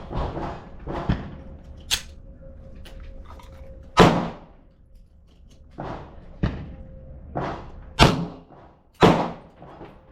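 Handgun shots on an outdoor range: about eight sharp reports at uneven intervals of one to two seconds, each with a short echo. The loudest come about four, eight and nine seconds in.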